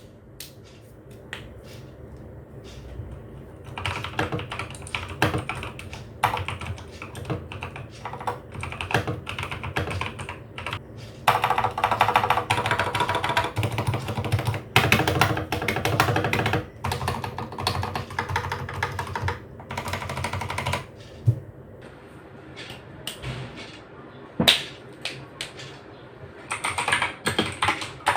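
Typing on a mechanical keyboard with lubed Outemu Blue clicky switches, in runs of fast keystrokes with pauses between. Near the end the typing is on the same switches unlubed, with a brighter, sharper click.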